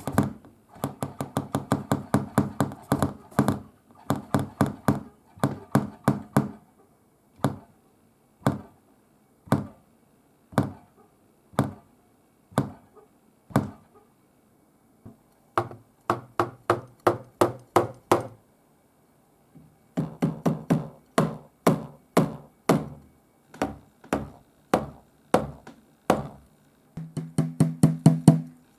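Drumsticks striking the mesh pads of a Roland TD-17KV-S electronic drum kit, heard acoustically without the module's sound: dull, lightly pitched thuds. Fast rolls give way to single strokes about a second apart near the middle, and then the rolls resume.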